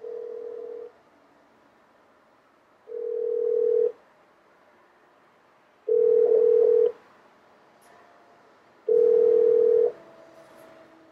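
Telephone ringback tone of an outgoing call, played through the car audio system's speaker: four steady one-second beeps about three seconds apart, the first quieter than the rest.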